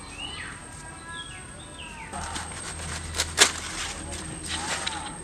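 Birds chirping in short stepped phrases, then fresh banana leaves rustling and crackling as they are handled, with two sharp snaps about three and a half seconds in, the loudest sound.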